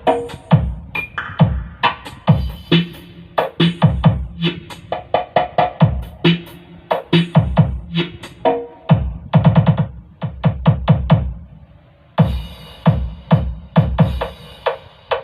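Electronic DJ remix music with drum-machine beats and synthesizer, played loud through a pair of loudspeakers for a sound check. A fast roll of drum hits about two-thirds in, then a short drop before the track comes back fuller.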